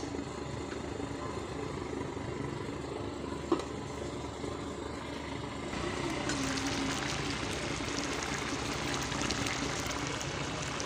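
Steady hiss and hum of a gas stove burner under a covered biryani pot set to steam on dum. There is one light clink about three and a half seconds in, and the hiss turns brighter about halfway through.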